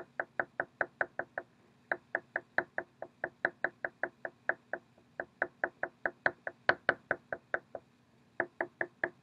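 An oil pastel stick tapped rapidly against paper, dabbing on dots of colour: quick, even knocks at about five a second, broken by three short pauses.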